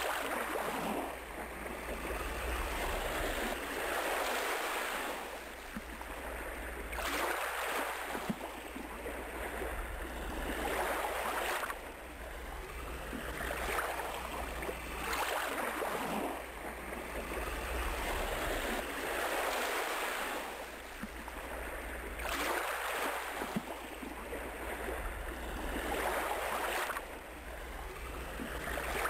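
Ocean surf washing onto a shore, each wave swelling and fading about every three to four seconds, over a steady low hum.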